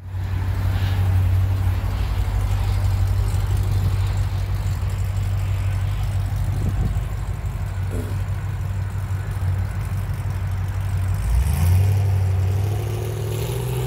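Car engine running with a low, steady note; the revs rise briefly near the end as the car is driven up.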